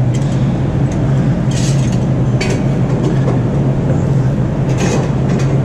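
Steady diesel engine running at idle, like a locomotive in the depot, giving a constant low hum. A few short, sharp scraping noises sound over it, about one and a half, two and a half and five seconds in.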